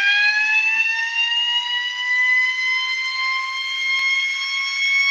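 A 12 V electric motor siren sounds one continuous, loud wail. Its pitch is still creeping slowly upward as the motor comes up to full speed.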